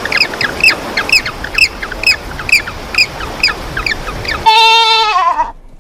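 A bird calling over and over, short high notes that fall in pitch, about two a second. Near the end they give way to a longer, lower animal call with a rich tone.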